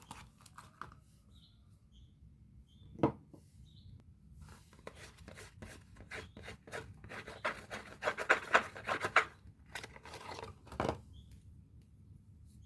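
Soap packaging being unwrapped by hand: scratchy rustling and tearing of the wrapper, loudest about eight to nine seconds in. There is a sharp knock about three seconds in and another near eleven seconds.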